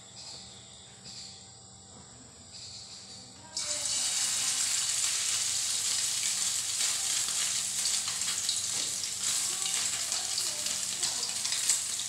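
Dulong fish batter (flour and cornstarch) dropped into hot cooking oil in a steel wok, starting suddenly about three and a half seconds in and then sizzling and crackling steadily as the fritter fries.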